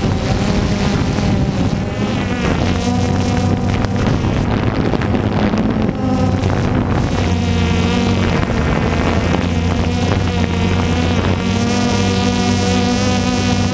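DJI Phantom 2 quadcopter's four brushless motors and propellers running as it climbs, a steady multi-tone buzz heard up close from the airframe, its pitch shifting now and then. Wind buffets the microphone underneath.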